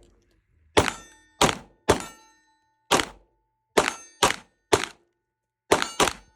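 Gunfire: nine shots at an uneven pace, some in quick pairs, with steady ringing tones lingering after several of them.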